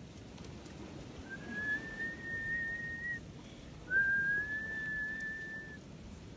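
A person whistling two long, steady notes at one high pitch, each about two seconds, with a slight upward slide at the start of each.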